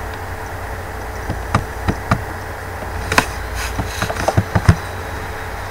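Computer keyboard keystrokes and mouse clicks: scattered sharp clicks, a few singly and then a quicker run between about three and five seconds in, over a steady electrical hum and hiss.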